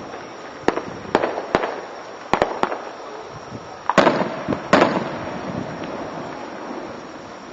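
Aerial fireworks bursting: a quick run of sharp bangs in the first three seconds, then two louder booms about four and five seconds in, each ringing on briefly.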